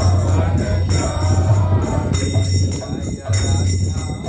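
Devotional kirtan music with small hand cymbals (kartals) clashing in a steady rhythm over a low pulsing beat.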